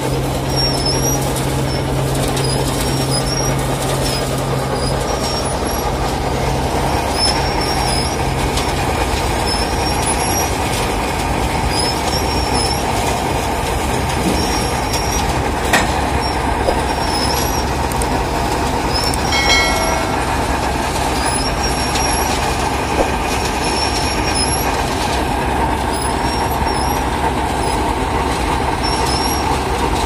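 Small mobile asphalt drum-mix plant running while it produces hot mix: a steady rumble and grinding from the rotating drum with its burner lit. A low motor hum drops away about nine seconds in, and short high squeaks recur throughout.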